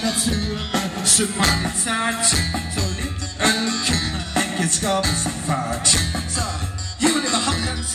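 Live rock band playing: drum kit, bass and electric guitar, with wavering melodic lines over a heavy low end, heard from among the audience.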